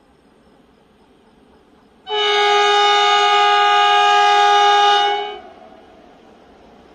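Horn of an electric SGR passenger train sounding once: a steady chord of several tones held for about three seconds, starting and stopping abruptly.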